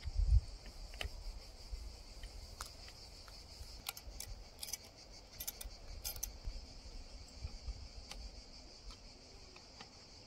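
Steady high-pitched insect chorus, with scattered light metallic clicks from steel pipe clamps and their screws being handled and fitted on the pipes.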